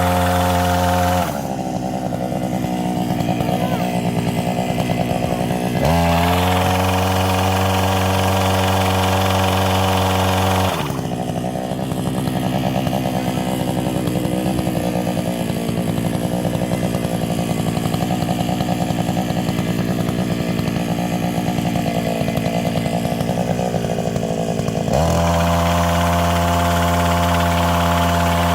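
The 65 cc two-stroke engine of a Stella Plus SP-1000 petrol fruit-harvesting shaker is running. It goes to a steady high-pitched full throttle three times: briefly at the start, for about five seconds from around six seconds in, and again near the end. In between it drops to a lower, rougher running.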